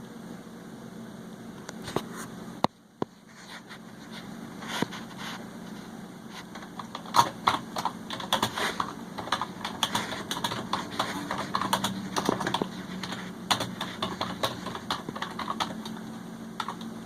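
A couple of sharp clicks about two seconds in, then from about seven seconds on, dense, irregular clicking and tapping over a faint steady low hum.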